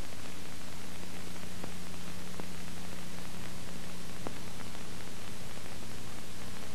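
Steady recording hiss with a low hum that stops about four seconds in, and a few faint ticks.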